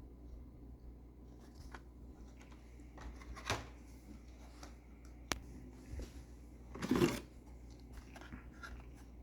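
Handling of packaged die-cast toy cars: light clicks and short rustles of card and plastic blister packaging, with a sharp click about five seconds in and a louder brief rustle about seven seconds in.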